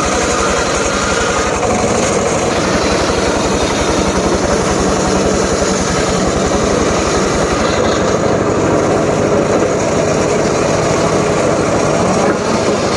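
Homemade engine-driven circular saw running steadily, its engine beating in a fast, even pulse under the noise of the spinning blade.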